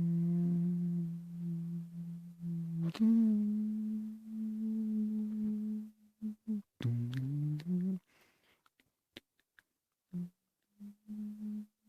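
A person humming long held notes. A low note is held for about three seconds, then the hum steps up to a higher note held about as long. Shorter notes follow, with a rising slide about seven seconds in, then a pause and a few short hummed notes near the end.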